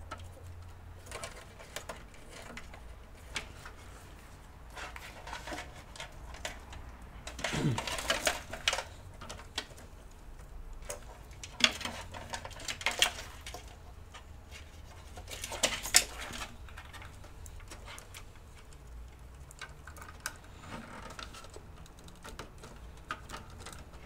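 Plastic clicks and rattles of power cables and connectors being handled and plugged in inside a PC case, in three short bursts about 8, 12 and 16 seconds in, over a low steady hum.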